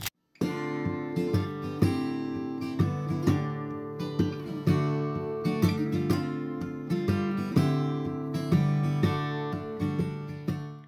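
Background music: strummed acoustic guitar chords at a steady, even pace, starting about half a second in after a brief silence.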